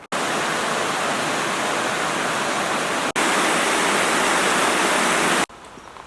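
Steady rushing water in two back-to-back shots, each starting and stopping abruptly; the second is a little louder. It cuts back to a much quieter outdoor background about five and a half seconds in.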